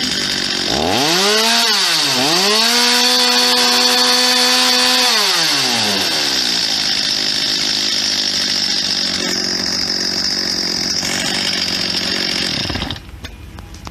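Freshly tuned Stihl MS 250 two-stroke chainsaw with an 18-inch bar revving up, dipping once, then holding a high steady pitch at full throttle. Its note then drops and a steady cutting sound follows, like the chain going through wood, until it cuts off near the end.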